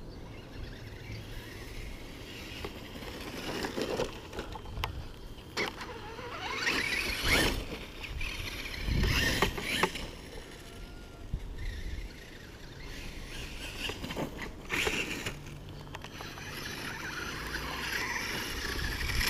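Radio-controlled rock crawler's Tekin brushless electric motor and drivetrain whining in several bursts, the whine rising and falling with the throttle as the truck is driven over grass.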